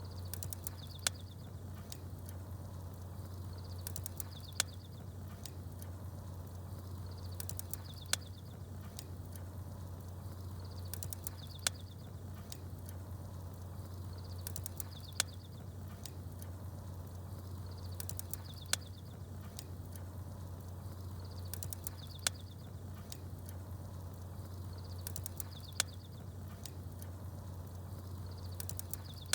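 Ambience of a crackling wood fire with small birds chirping: a short burst of high chirps and a sharp pop come back about every three and a half seconds, exactly alike each time, over a steady low hum.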